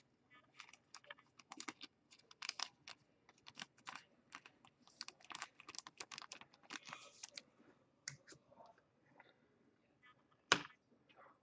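Faint, irregular typing on a computer keyboard: quick runs of key clicks, a short pause, then one louder click near the end.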